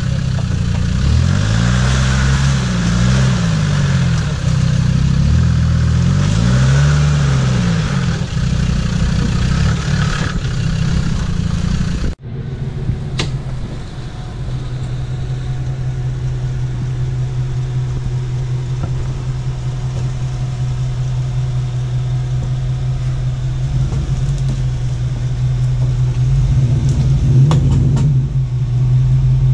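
Land Rover Defender's engine revving up and down several times while stuck in mud. After a sudden cut about twelve seconds in, a Jeep Cherokee XJ's engine runs at a steady low pitch as it crawls through a deep rut.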